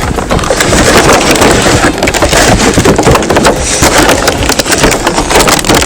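Toy packaging being handled and pulled open: a loud, dense crackling and rustling of cardboard and plastic, full of small clicks.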